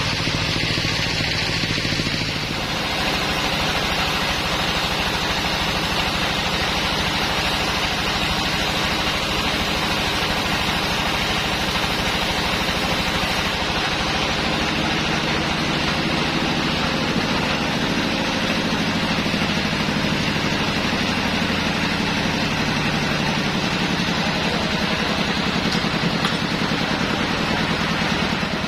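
Sawmill machinery running steadily, with a low engine drone and a dense mechanical din; the sound shifts about two and a half seconds in.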